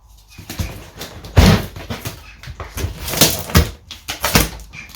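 Cardboard shipping box and its packing being handled and pulled open: irregular rustles, scrapes and knocks, the loudest about a second and a half in.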